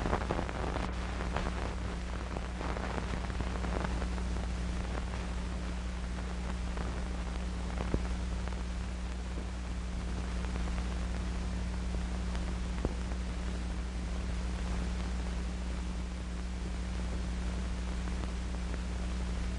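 Background noise of an old film soundtrack with no voice or music: a steady hiss and crackle over a steady low hum, the crackle busier in the first few seconds, with a faint pop about eight seconds in and another near thirteen.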